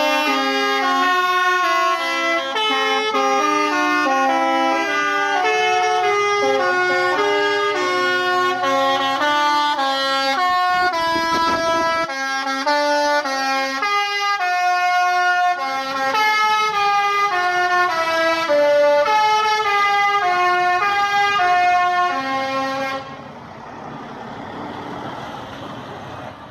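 Buses' multi-tone musical air horns (Indonesian 'telolet' horns) playing a tune in stepping notes, with a brief rush of noise about eleven seconds in. The horns cut off about twenty-three seconds in, leaving quieter background noise.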